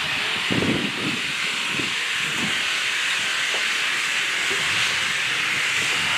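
Steady loud hiss of air or gas escaping under pressure, with low wind buffeting on the microphone in the first second.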